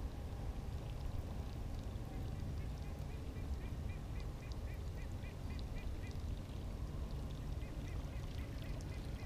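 Steady low wind rumble on the microphone, with a bird calling in quick runs of short, high notes, about four a second, starting a couple of seconds in and again near the end.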